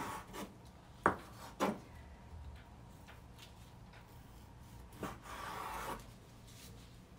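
Chef's knife slicing thinly through raw chicken breast and knocking on a wooden cutting board: a few sharp taps, the loudest about a second in, and a longer scraping stroke near the end.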